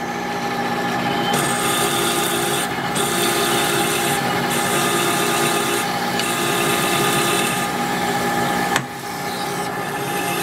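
Monarch lathe running steadily while a twist drill cuts a deep hole into a spinning 1144 Stressproof steel shaft. The drilling hiss comes in stretches with short breaks. About nine seconds in there is a sharp click and the cut drops off as the drill is pecked back out to clear chips and let lube down the hole.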